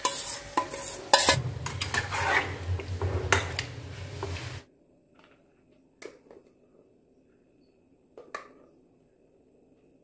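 Steel bowl and utensils clattering and scraping against a pan as marinated chicken is scooped and tipped in. The sound cuts off abruptly a little over four seconds in, leaving near quiet with two faint clicks.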